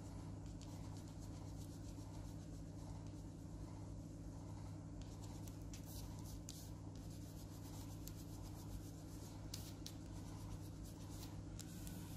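Blue crayon scribbling back and forth on paper: quick scratchy strokes, busier in the second half, over a steady low hum.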